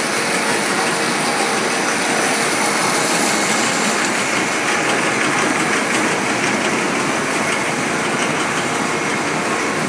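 Core-filled corn puff snack processing line running: a steady, loud machinery din of hiss and hum, with a few faint steady whining tones in it.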